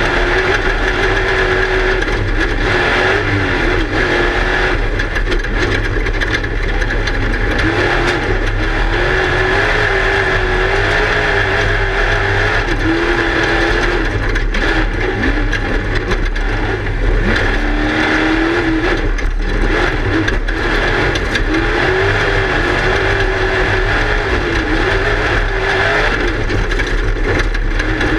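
Class 1 desert race car's engine running hard, its revs rising and falling again and again with the throttle, while the car knocks and rattles over rough ground, heard from inside the car.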